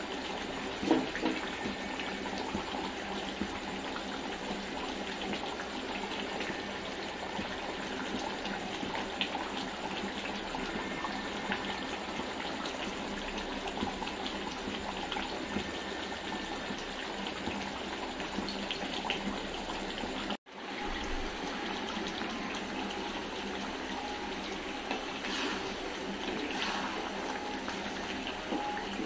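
Mutton sizzling and bubbling in its own juices in a steel kadai, slow-fried for kosha with no water added: a steady bubbling hiss that briefly cuts out about two-thirds of the way through. A few light knocks follow near the end.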